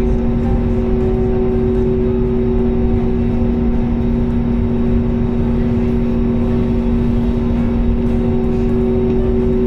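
Airbus A320 jet engines heard from inside the passenger cabin: a loud, steady drone, a low hum in two pitches over an even rush of air and engine noise.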